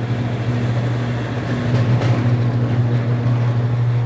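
BWS-80 HD industrial wire stripping machine running steadily with a strong low hum as a piece of 500 MCM cable is fed through its cutting blades.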